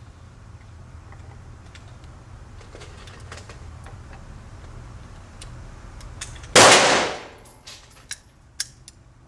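A single handgun shot about six and a half seconds in, a sharp crack that rings off over about half a second, over a steady low hum. Two faint clicks follow.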